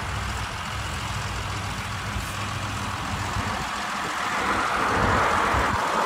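John Deere combine harvester running steadily as it harvests, a low engine drone with a rushing hiss that grows louder from about four seconds in.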